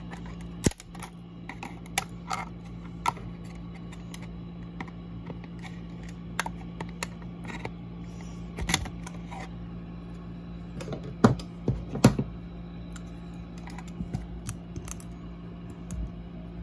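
Irregular small clicks and taps of hands handling a plastic cable tie against a desk lamp's metal shade and plastic parts, with a few louder knocks about two-thirds of the way through. A steady low hum runs underneath.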